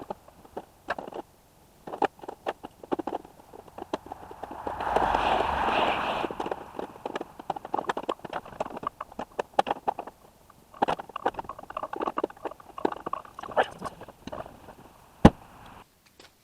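Irregular clicks and knocks of hand tools working on the car, with a brief rushing noise about five seconds in and one sharper knock near the end.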